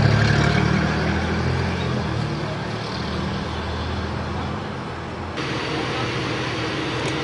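A motor vehicle running close by on the street, its engine rumble loudest at first and fading over a few seconds, giving way abruptly to steady traffic noise.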